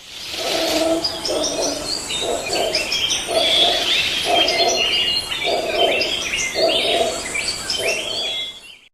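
Jungle ambience sound effect: many birds chirping and whistling at once, with a lower call repeating about once a second.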